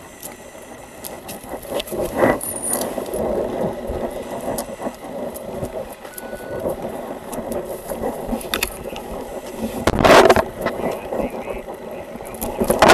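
Body-worn camera rubbing and rattling as its wearer moves, with small metal jangles from duty gear and clothing brushing over the microphone. It scuffs louder about ten seconds in and again near the end.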